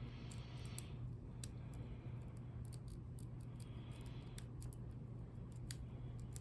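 Faint, scattered metallic clicks and scratches of a lock pick working the pins inside a Kryptonite padlock, over a steady low hum.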